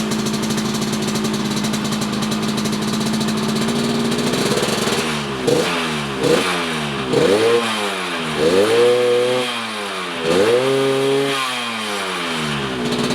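Yamaha RX-King's 135 cc single-cylinder two-stroke engine, set up for a raspy 'ngorok' (snoring) note, running at a steady idle, then blipped repeatedly from about five seconds in, revving up and falling back, with the last two revs held longer before it settles back to idle.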